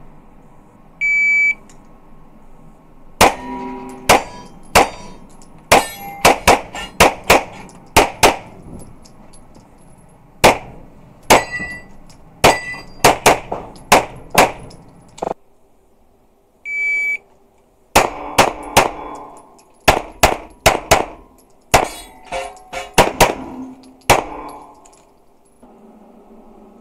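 A shot-timer beep, then about three dozen pistol shots fired in fast pairs and strings, with a pause of a few seconds in the middle where a second beep sounds. Some hits set steel plate targets ringing briefly.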